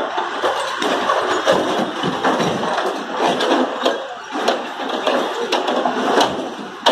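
Backhoe loader's diesel engine running while its bucket works over broken brick and paving, with repeated knocks and the clatter of rubble.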